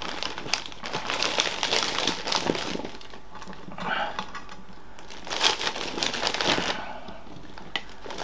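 Plastic bag of meatballs crinkling and rustling as it is handled, in several irregular bursts with small clicks between quieter pauses.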